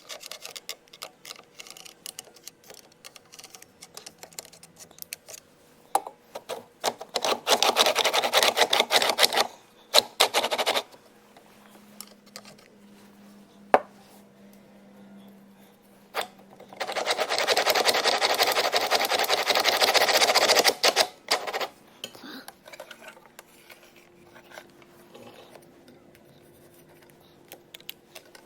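Hand work on metal parts: light clicks and taps of parts being handled, with two harsh, noisy stretches of a few seconds each, one about a quarter of the way in and a longer one past the middle.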